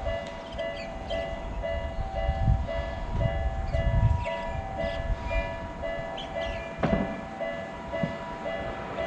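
Japanese level-crossing warning bell ringing in its steady alternating two-tone "kan-kan", about two tones a second, while a train passes with a low rumble and a sharp clack about seven seconds in.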